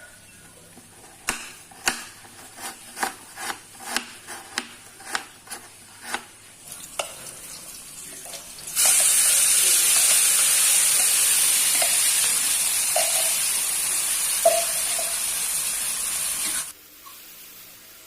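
A run of about a dozen sharp knocks, two or three a second, then food frying in hot oil, sizzling loudly for about eight seconds before cutting off suddenly.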